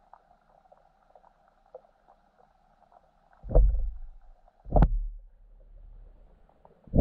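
Underwater sound with a faint steady hum. About three and a half seconds in come three heavy muffled thumps, a little over a second apart, each trailing off in a low rumble.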